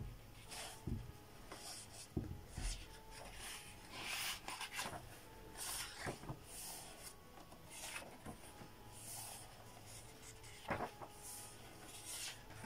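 Pages of a Weekly Shōnen Jump manga magazine, thin newsprint, being turned by hand: soft, repeated rustles and swishes, about one every second.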